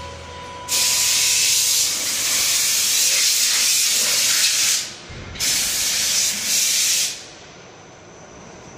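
Loud hiss of a high-pressure jet in a steel blasting chamber, in two bursts: one of about four seconds, then a shorter one of under two seconds that cuts off about seven seconds in, leaving a faint steady hiss.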